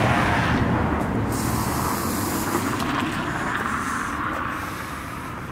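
A passing car's road noise: a steady rush that slowly fades away.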